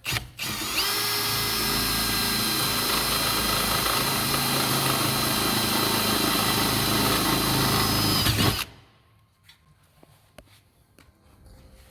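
Power drill boring a rivet hole through the side body panel of a Toyota Land Cruiser troop carrier. After a brief blip it runs steadily for about eight seconds with a high whine, then stops suddenly.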